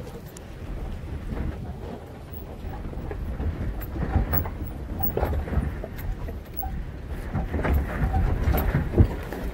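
Inside the cab of a Toyota Tacoma 4x4 crawling over a rocky dirt trail: a low, steady rumble of the truck and its tyres on the rough ground, with scattered knocks and rattles as it bounces over rocks and one sharp thump about nine seconds in.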